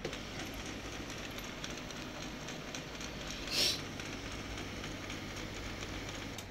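HP LaserJet Pro MFP M126nw laser printer starting up after a restart, its motors and gears running steadily as it initializes. There is a click right at the start and a short hiss about three and a half seconds in.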